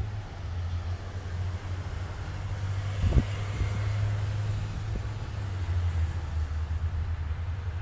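Steady low hum inside a Kia Carnival minivan's cabin, with a single thump about three seconds in.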